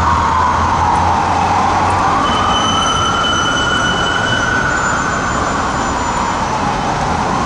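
Whelen electronic siren on a fire truck sounding a slow wail: the pitch falls, rises and falls again, with traffic going by.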